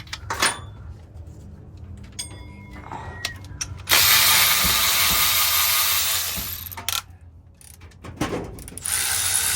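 A cordless power tool runs for about two and a half seconds in the middle, fading out at the end, with scattered metallic clicks of hand tools and parts before and after it.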